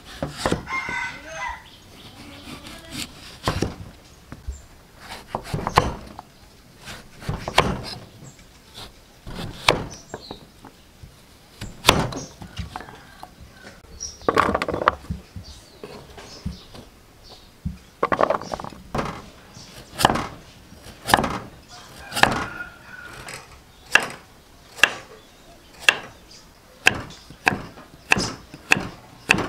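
Kitchen knife chopping taro and carrot on a thick round wooden chopping block: single knocks at uneven intervals, settling into a steady stroke a little over once a second near the end as the carrot is diced.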